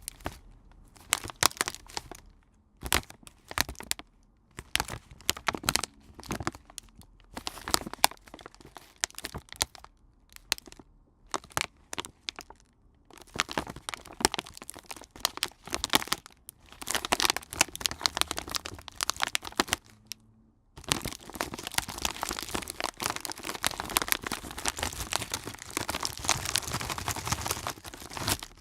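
Plastic packaging rustled and squeezed by hand: sharp cracks and crinkles in irregular bursts with short pauses between them. In the last quarter it turns into continuous dense crinkling.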